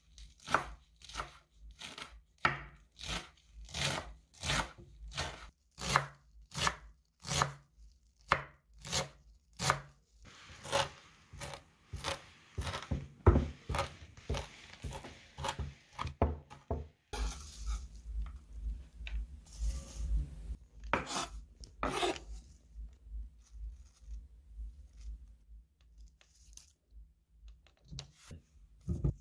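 Chef's knife chopping fresh parsley on a wooden cutting board. The knife strikes the board about twice a second at first, then chops in a faster run about a third of the way in, and ends with a few scattered strikes.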